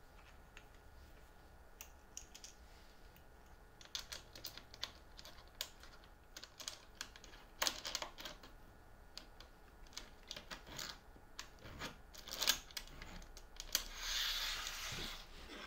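Irregular small clicks and taps of plastic star knobs, bolts and a plastic featherboard being handled and fitted to an aluminium router-table fence. Near the end comes a scraping slide of about a second and a half as the featherboard is pushed along the fence.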